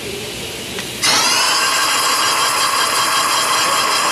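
Compressed-air blow gun with a long nozzle blowing into the tapped spark plug hole of a Ford 6.8 V10, clearing out metal chips. It comes on suddenly about a second in, with a brief rising whine, then a loud steady whistling hiss.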